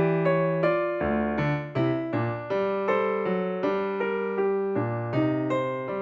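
Background music: a piano or electric-piano melody played as a steady run of notes, several a second.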